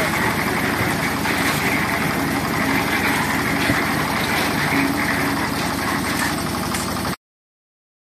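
Reversible concrete drum mixer running steadily, its engine drone mixed with a dense rushing noise from the turning drum. It cuts off suddenly about seven seconds in.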